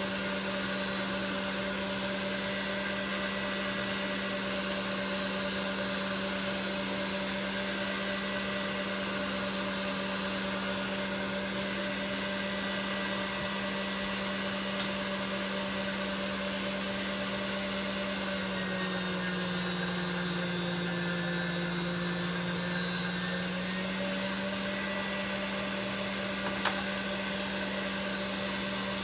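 KitchenAid stand mixer's motor running steadily, driving its pasta roller attachment. The hum dips lower in pitch for about five seconds past the middle, then returns, with two small clicks along the way.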